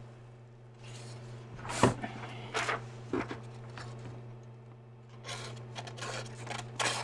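Serrated knife edge, freshly sharpened, slicing through a sheet of paper in a paper cut test: several short, crisp rustling swipes, with a denser run of rustles about five seconds in.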